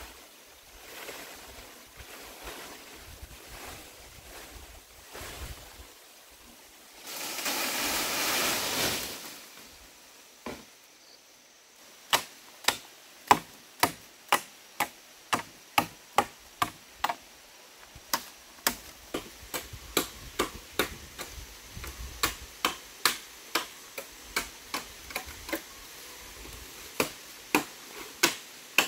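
Machete chopping at bamboo poles: sharp strikes at about two a second with short pauses, starting about twelve seconds in. Earlier there is a loud rush of rustling noise lasting about two seconds.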